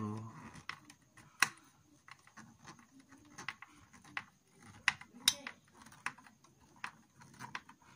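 Screwdriver turning the CPU heatsink fan's mounting screws: scattered light metallic clicks and ticks, with a few sharper clicks about one and a half seconds and five seconds in. The screws are being snugged down part way, one corner at a time.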